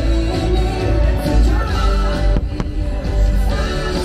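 Fireworks show soundtrack playing loudly over park loudspeakers, with heavy bass and a couple of sharp firework bangs about two and a half seconds in.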